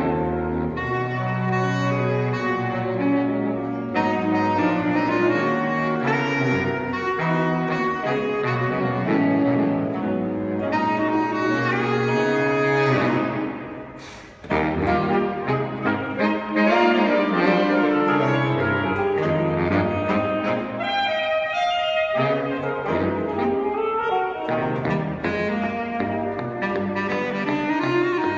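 Saxophone quartet playing an arrangement of a Japanese pop song, the four saxophones sounding together in harmony. About halfway through the playing breaks off briefly, the sound dying away, then comes back in.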